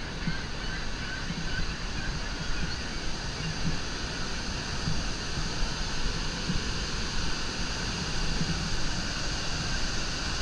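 Steady rushing of Niagara's Bridal Veil Falls and the white water cascading over the rocks beside the walkway, a continuous dense water noise.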